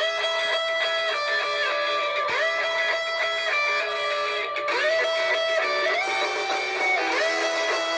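Nokia 6301 mobile phone ringtone playing: a melody of held notes, several sliding up into pitch, in repeating phrases.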